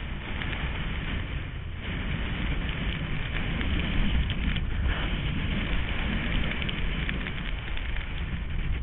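Wind buffeting a moving camera's microphone while skiing, a steady deep rumble, with the crackling scrape of skis over snow.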